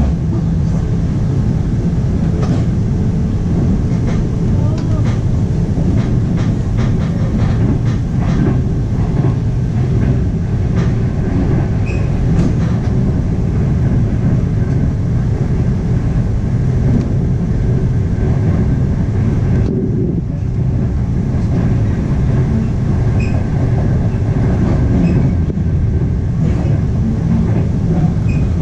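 A 25T passenger coach running on the rails, heard from inside the carriage: a steady low rumble of wheels and bogies, with scattered sharp clicks, most of them in the first dozen seconds or so.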